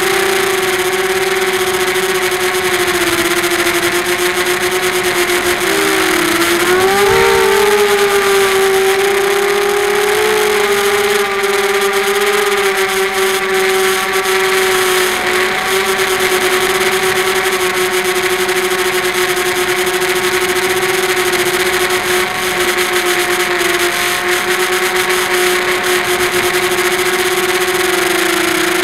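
QAV250 quadcopter's four Sunnysky 2300KV brushless motors spinning 5x4 propellers, heard from the onboard camera as a loud, steady buzzing hum. The pitch wavers and rises briefly about six seconds in as motor speed changes, then holds steady.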